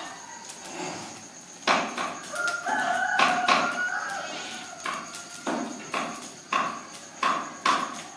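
A rooster crows once, a call of about two seconds that begins a little over two seconds in. A steady series of sharp knocks and crackles, about two a second, runs underneath it.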